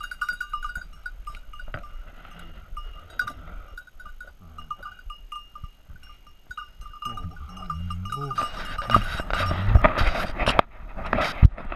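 A small bell on an English setter's collar jingling continually as the dog moves about. From about eight seconds in, loud brushing and crunching of undergrowth as the hunter walks through the brush, with a sharp knock near the end.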